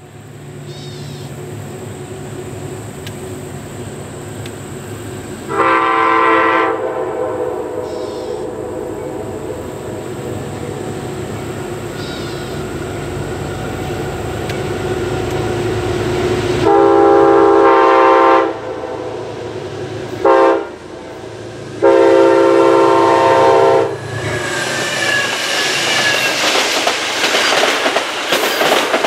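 Amtrak passenger train sounding its horn in the grade-crossing pattern of long, long, short, long as it approaches. In the last few seconds the passenger cars pass close by with rushing wheel-on-rail clatter.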